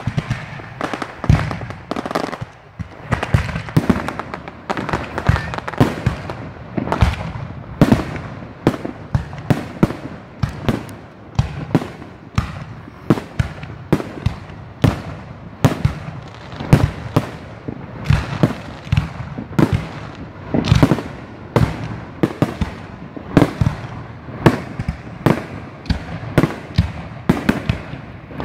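Fireworks display: aerial shells bursting in a dense, continuous barrage, sharp bangs coming about two a second.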